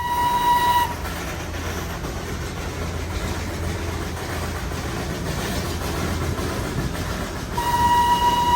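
Darjeeling Himalayan Railway toy train: a high, steady locomotive whistle blows for about a second, then the train's running rumble and rattle, and the whistle sounds again about seven and a half seconds in, held to the end.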